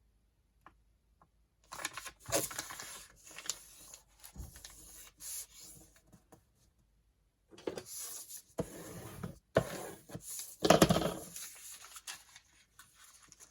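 Sheets of tea-stained paper being handled, rustling and rubbing in two spells with a few sharp crackles, loudest in the second spell.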